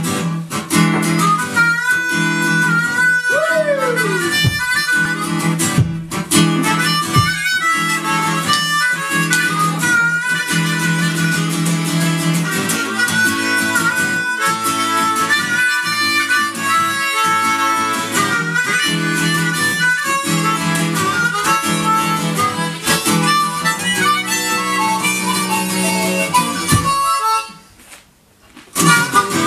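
Blues harmonica played into a vocal microphone over a strummed acoustic guitar, its notes bending and sliding in pitch. The music breaks off for a second or so near the end, then starts again.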